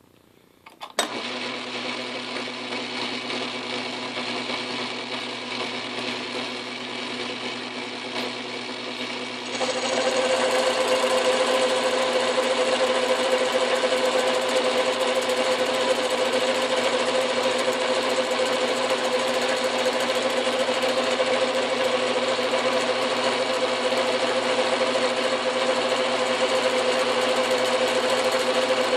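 Atlas metal lathe switched on about a second in and running steadily. About nine seconds in the knurling wheels press into the spinning steel shaft and the sound grows louder, with a steady whine and a hiss; the spindle is turning faster than suits knurling.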